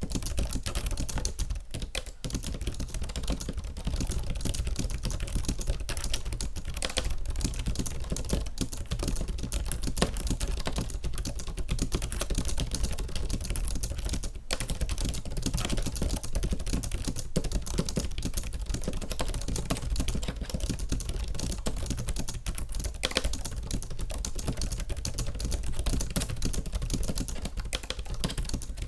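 Fast continuous typing on a Logitech K780 keyboard's scissor-switch keys, a dense stream of soft key clicks with brief pauses about two seconds in and near the middle.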